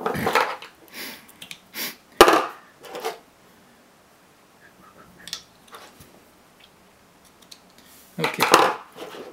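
Cylindrical 18650 lithium-ion cells knocking and clattering as they are handled and set down on a hard tabletop: several short knocks in the first three seconds, the sharpest about two seconds in, then a quiet stretch, and more handling near the end.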